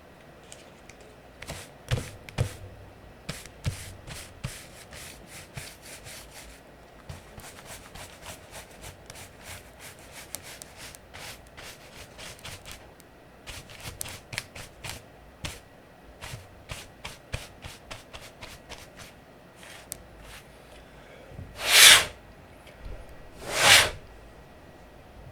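A brush scrubbing over the exposed switches and plate of an Aula F99 Pro mechanical keyboard, in many quick scratchy strokes. Near the end come two loud blasts of air about two seconds apart, blowing the loosened dust away.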